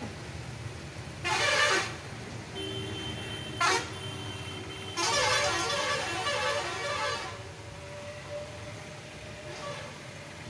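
Street traffic with a vehicle horn: a steady horn tone held for about two seconds, among short rushes of noise.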